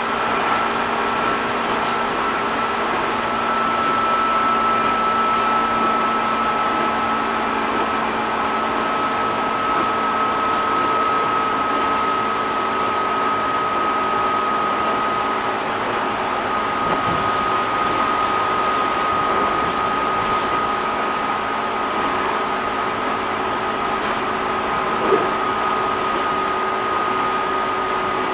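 Interior running noise of a JR 205 series 600 subseries electric train: a steady rumble and hiss with a high whine that sinks very slowly in pitch. A small click comes about 25 seconds in.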